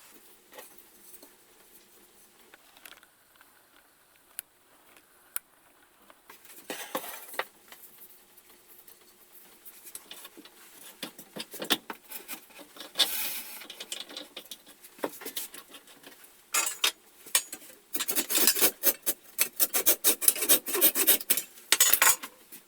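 Wood being scraped and rubbed with an abrasive, as in filing, rasping or sanding, in irregular strokes. The strokes come faster and louder over the last few seconds, then stop just before the end.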